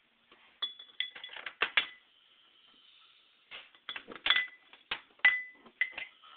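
Irregular sharp clicks and clinks in two clusters, several of them ringing briefly with a high tone.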